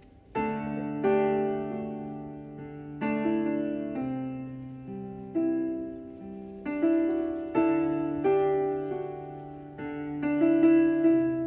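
Slow piano music: chords and single notes struck every one to two seconds, each left to ring and fade.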